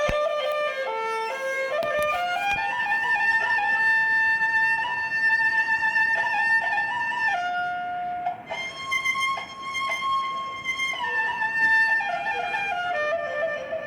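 Background music: a slow melody of long held notes on a violin-like bowed instrument, stepping from note to note.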